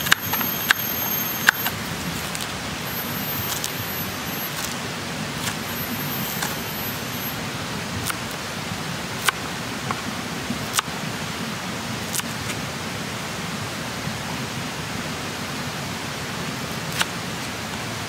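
Wood cooking fire crackling: scattered sharp pops, one every second or two, over a steady rushing hiss.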